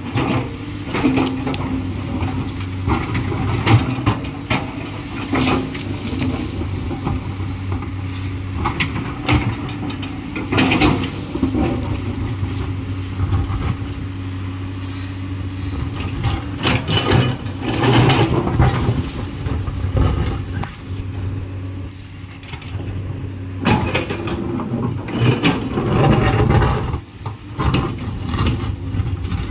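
Komatsu PC210LC hydraulic excavator working: its diesel engine runs steadily under load while metallic clanks and scrapes come and go, with several louder bursts of clanking.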